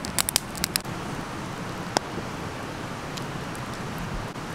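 Wood campfire burning: a steady rushing hiss with a quick run of sharp snaps in the first second and a single loud pop about two seconds in.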